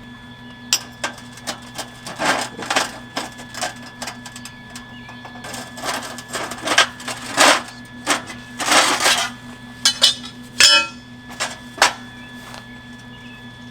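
Metalworking on steel: irregular sharp metal knocks and short rasping bursts, about a dozen over ten seconds, over a steady low hum.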